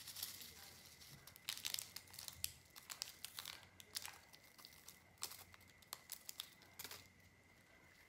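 Clear glitter slime full of star sequins and beads being squeezed and stretched by hand, giving a faint run of crinkling and small crackling clicks in irregular clusters.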